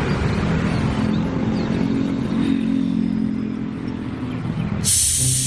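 A steady mechanical rumble, like a small motor running, then a sudden loud hiss of spray about five seconds in.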